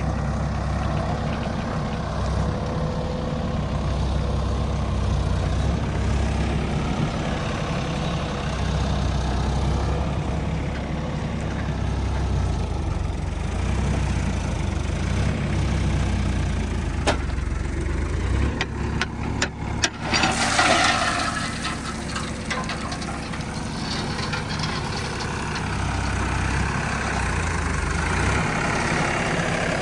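Diesel engine of a JCB 3DX backhoe loader running steadily at work. About two-thirds of the way through there is a sharp click, then a run of knocks and a brief loud rushing, scraping noise, before the engine drone settles back.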